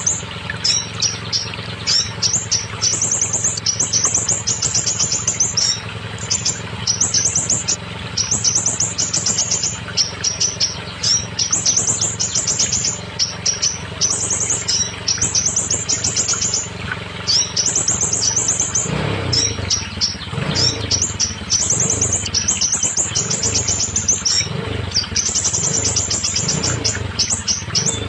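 Scarlet minivet song: repeated bursts of rapid, high chattering notes, each about a second long, coming every second or two. A steady low hum runs beneath for the first two-thirds.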